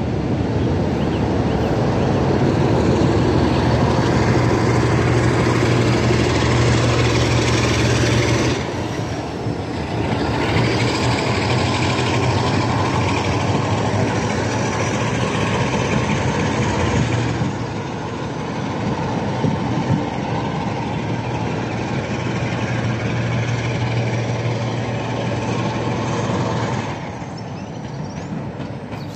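Heritage diesel locomotive hauling a train of coaches past at close range, its engine running loud and steady under load, with wheel noise from the coaches. The sound dips briefly twice and falls away near the end as the train draws off.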